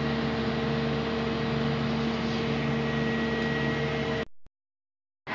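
Crane truck's engine running at a steady speed, a constant hum with held tones over a noisy wash, cutting off abruptly to silence about four seconds in.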